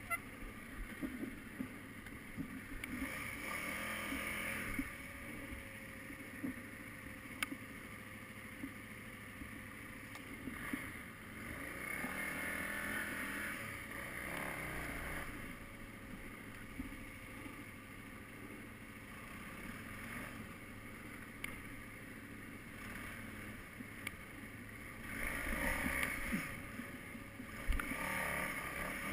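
KTM 990 Adventure's V-twin engine running as the motorcycle rides over dirt, with wind noise. The engine note rises and falls a few times with the throttle.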